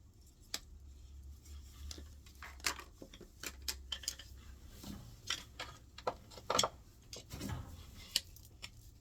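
Irregular small clicks, taps and clatter of washing-machine parts and screws being handled during reassembly of the drain pump mount.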